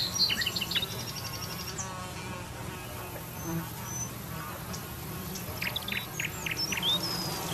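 Countryside ambience: flies buzzing steadily, with small birds chirping and trilling over them, a burst of calls at the start and another near the end.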